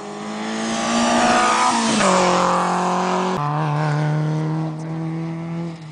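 Rally car passing at racing speed: its engine note grows louder as it approaches, peaks, and drops in pitch as it goes by. About three and a half seconds in the engine note steps down suddenly with a click, then it carries on more quietly as the car pulls away.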